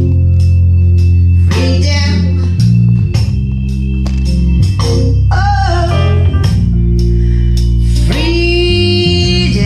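Slow ballad music: a voice singing over long held chords and bass notes.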